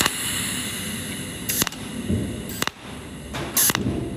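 Cold welding machine firing pulsed arcs from its tungsten electrode to melt 2 mm filler wire onto steel nuts, one short sharp burst about every second.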